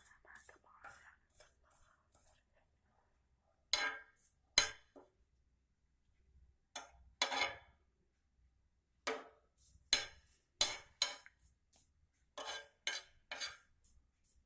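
Metal spoon scraping and clinking in a pan in about a dozen short strokes, with pauses between them, while stirring leaves that are being burnt to ash.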